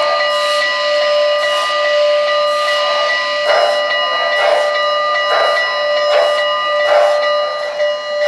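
The model N&W J-class steam locomotive's onboard sound system playing a chime steam whistle held in one long, steady blast. Under it runs a rhythmic steam chuff, about one a second.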